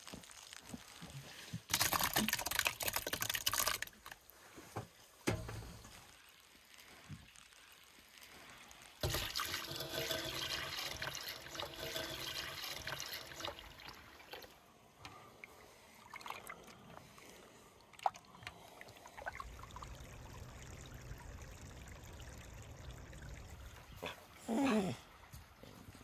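Milk poured from a clay jug into a stainless-steel pot, a steady splashing stream lasting about five seconds, with a shorter burst of splashing water before it. Near the end comes a brief whine falling in pitch from a puppy.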